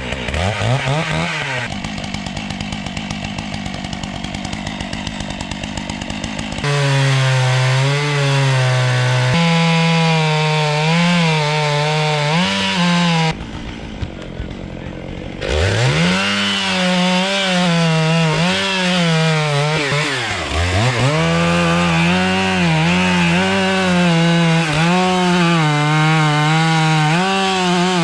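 Gas chainsaw running at high revs while cutting wood, its engine pitch rising and dipping as it loads in the cut and recovers. There are abrupt shifts in the sound about a third and halfway in, with a quieter stretch in between, and a deep drop in pitch and recovery about three quarters of the way through.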